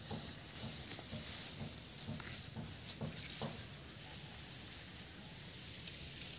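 Footsteps walking over grass and a dirt path, about two steps a second, over a steady high hiss of insects.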